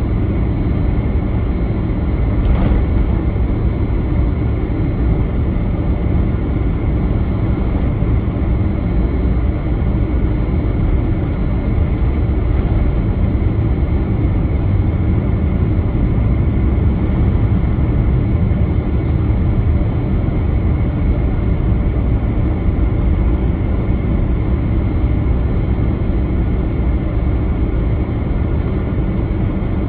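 Cabin noise inside a Boeing 767-300ER taxiing: a steady low rumble from the engines and rolling wheels, with a faint high engine whine running under it.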